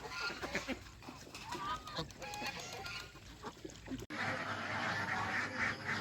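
Farm geese and ducks calling, with separate honks and quacks at first. About four seconds in, an abrupt cut brings a louder, denser chorus of many birds calling at once.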